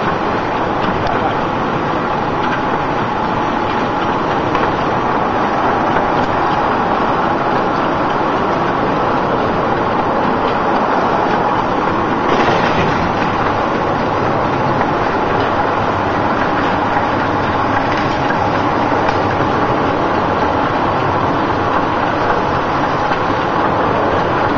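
Traditional olive mill running: stone millstones rolling round the basin and crushing olives, a steady mechanical clatter with a brief louder rush about halfway through.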